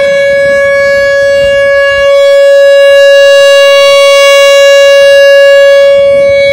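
Rotating outdoor tornado warning siren sounding its test signal: one steady, very loud wail held at full pitch after winding up. It swells a little louder from about two seconds in and eases off near the end.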